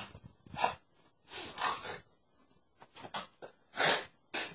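A man making gunfire noises with his mouth: a string of short, breathy puffs and bursts, spaced irregularly.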